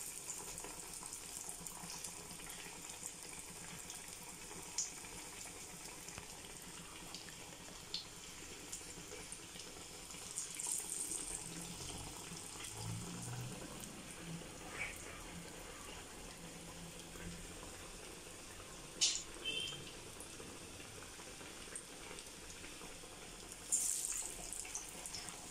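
Green gram vadas deep-frying in hot oil: a steady sizzle of bubbling oil, with a couple of brief louder spurts of hissing and a few small clicks.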